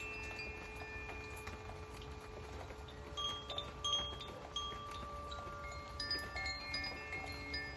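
Wind chimes ringing: clear tones at many different pitches sound at irregular moments and ring on, overlapping, with a few short bright pings in the middle, over a steady soft hiss of rain.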